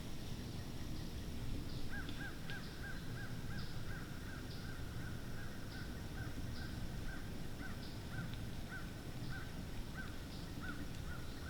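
An animal calling in a long run of short, evenly repeated calls, about two a second, with steady low background noise underneath.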